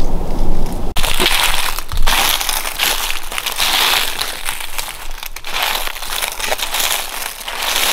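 A low rumble for about the first second, then footsteps crunching through dry fallen leaves and twigs on the forest floor, in a dense, irregular run of crackles.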